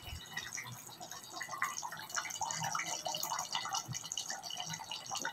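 Thick vegetable gravy bubbling in a clay handi, a soft scatter of small irregular pops and plops. It keeps boiling on the heat held in the clay pot though the gas flame is off.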